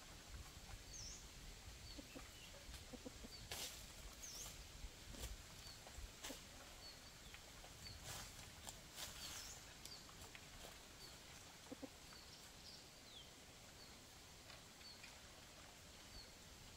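Faint crackle and rustle of dry leaf litter as a red junglefowl rooster scratches and pecks on the ground, with small birds giving short, high chirps every second or so.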